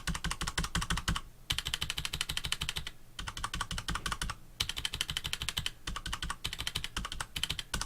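Rapid typing on a mechanical keyboard with Cherry MX Brown tactile switches, their keystrokes damped by rubber O-rings. The clicks come in about five quick bursts of a second or so, with short breaks between.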